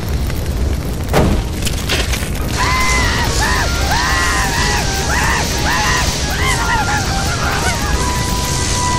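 Cartoon sound effects: a loud bang about a second in, then a steady hiss of a fire extinguisher spraying. Over the hiss a cartoon beaver character gives a string of high, wavering screams, each one rising and falling in pitch.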